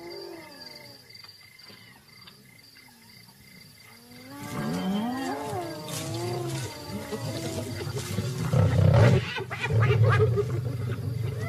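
Lions snarling and growling as they squabble over a carcass. The calls are quieter for the first few seconds, grow louder from about four seconds in, and peak with loud snarls around nine and ten seconds.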